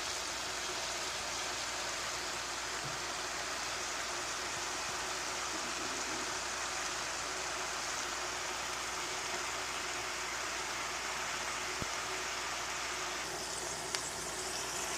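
Egg roll vegetable filling sizzling steadily in a frying pan, with a couple of faint clicks near the end.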